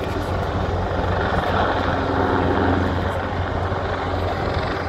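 Eurocopter EC725 Caracal helicopter in flight, its main rotor and twin turbine engines giving a steady, unbroken hum.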